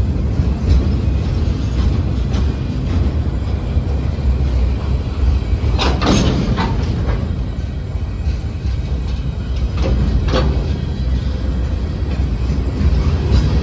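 Union Pacific freight train's cars rolling past at close range on street-running track, a steady low rumble of wheels on rail, with brief high metallic screeches about six and ten seconds in.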